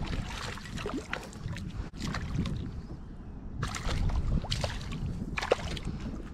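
A small hooked largemouth bass splashing at the water's surface in several separate bursts as it is reeled up to the kayak, over a steady rumble of wind on the microphone.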